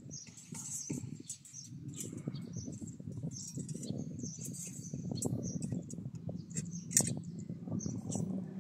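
Steel rebar and tie wire being handled for a tie-beam cage: light metallic clinks and scrapes over a steady low rumble, with one sharp click about seven seconds in.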